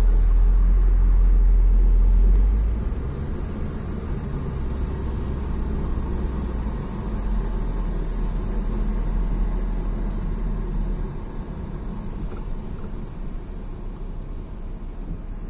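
Car interior noise while driving on a wet road: a steady low rumble of engine and tyres with a hiss of spray, louder for the first three seconds or so, then settling lower.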